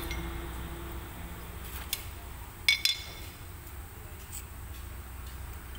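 A few sharp metallic clinks as a drum brake shoe and its small steel hardware are handled, the loudest a close pair a little under three seconds in, over a low steady hum.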